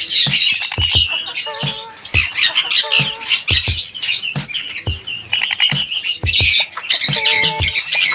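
Sun conures squawking in harsh, high-pitched calls, over background music with a steady beat.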